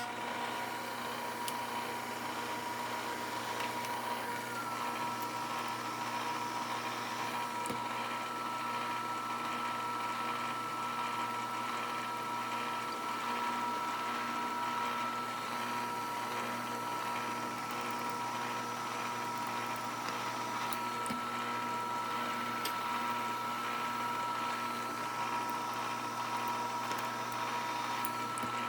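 Milling machine running steadily while center drilling a metal plate, with a constant whine. A second, higher whine comes in with a short upward slide about four or five seconds in and then holds steady.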